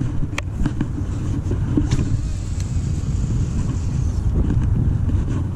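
Wind buffeting an open-air camera microphone: a steady low rumble, with a few light clicks from handling the rod and reel.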